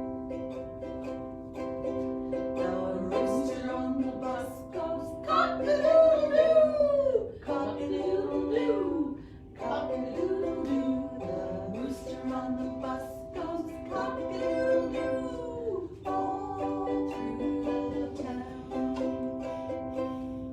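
Ukulele strummed in steady chords, with a voice singing or vocalising over it through much of the middle.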